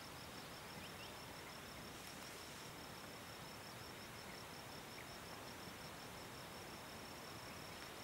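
A cricket chirping in a steady, evenly pulsed high trill, over a faint constant background hiss.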